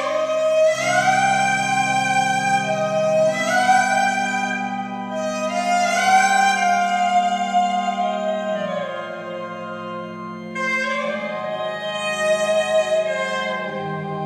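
Instrumental music from a test CD played through home-built loudspeakers with Isophon P21 and Realistic 40-1374 drivers, driven by a Dynaco SCA-35 tube amplifier and picked up by a phone microphone. A sustained melody of long, gliding notes plays over held bass notes.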